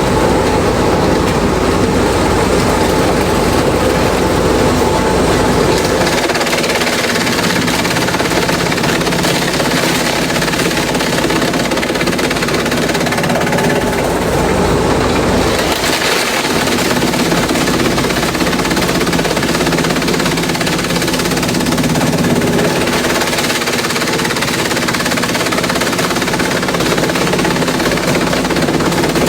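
Industrial bamboo shredder running under load: a loud, dense grinding and rattling. Its deep low rumble falls away about six seconds in.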